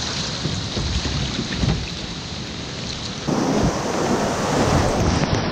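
Brown whitewater rapids rushing around a kayak, with low buffeting from wind on the microphone. The rushing gets louder about three seconds in as the kayak enters the rapid.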